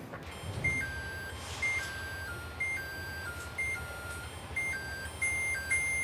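Microwave oven's electronic chime: short plain beep tones stepping down in pitch, a high short note then lower held notes, repeating in phrases about once a second over a low hum.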